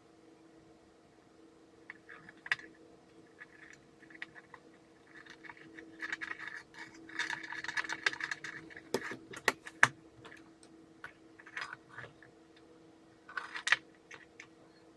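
Small plastic and metal parts of a Makita ML807 lantern work light being handled during its switch replacement: scattered light clicks, taps and short scrapes, busiest in a flurry in the middle, with a few sharper clicks near the end.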